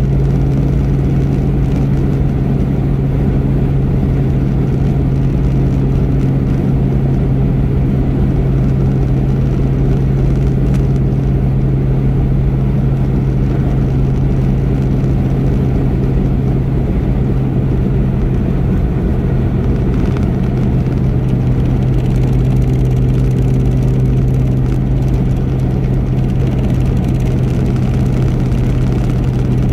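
Car driving on the highway: a steady low drone of engine and road noise that holds an even level.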